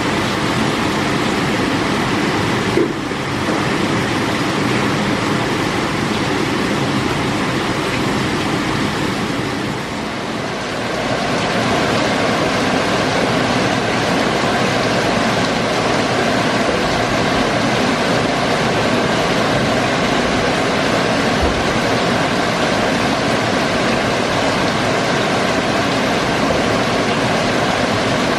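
Heavy rain pouring down steadily in a dense hiss, with a single short knock about three seconds in.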